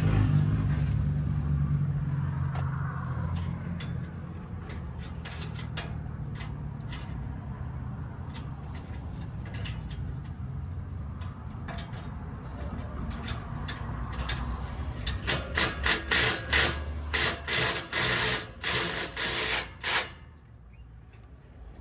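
Clicks and knocks of tools being handled, then a power drill run in a rapid string of short bursts, drilling out a bumper mounting hole. A vehicle's engine hum fades away in the first few seconds.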